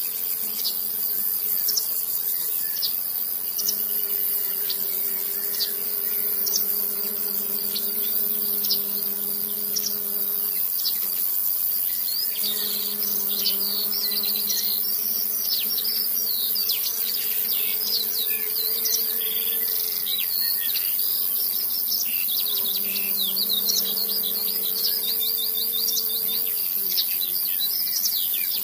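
A buzzing small electric motor hum that drops out and comes back every several seconds and steps up in pitch late on, with birds chirping throughout over a steady high hiss.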